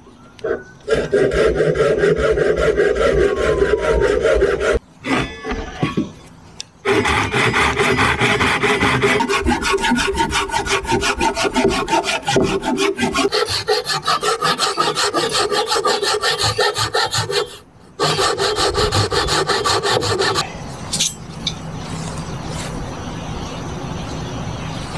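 Small folding hand saw cutting through a wooden branch in quick, even back-and-forth strokes, with two short pauses. The sawing stops about three-quarters of the way through.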